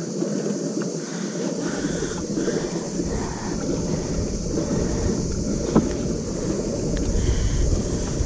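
Wind buffeting an action camera's microphone on a kayak at sea: a steady hiss, with a low rumble setting in about a second and a half in. A single sharp tap comes near the middle.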